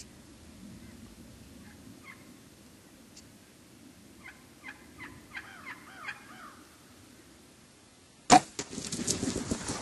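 Wild turkeys calling faintly, a quick run of calls near the middle. About eight seconds in comes a sudden loud crack, followed by a busy clatter and rustle that runs on louder.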